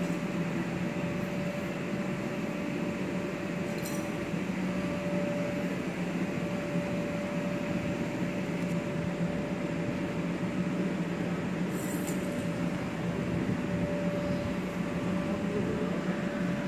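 Steady low machine hum over a constant hiss.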